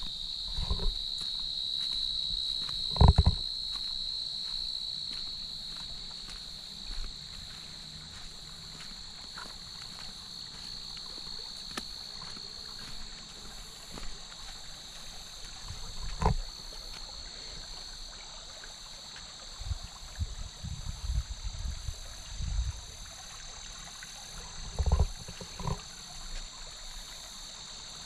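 Steady high-pitched insect chorus in late-summer woods. Scattered low thumps and knocks are heard throughout, the loudest about three seconds in and a cluster around two-thirds of the way through.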